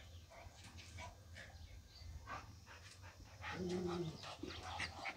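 A dog gives one short, low call about three and a half seconds in, among light scuffing and small taps.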